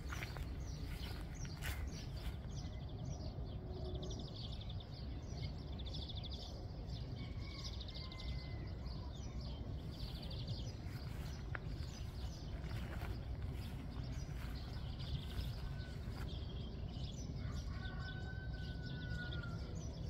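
Small birds chirping and singing over a steady low background rumble, with a few short whistled notes near the end.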